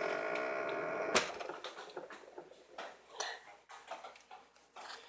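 A steady tone stops at a sharp click about a second in. Faint, scattered small clicks and rustles follow as things in a refrigerator are handled.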